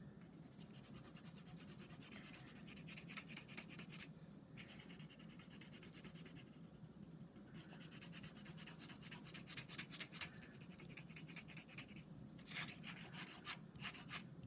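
Colored pencil shading back and forth on paper: faint, rapid scratching in several spells, with short pauses about four and seven seconds in.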